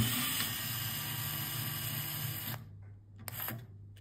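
Small electric screwdriver running for about two and a half seconds as it backs a side screw out of a car navigation head unit, then stopping. A brief burst comes a little after three seconds.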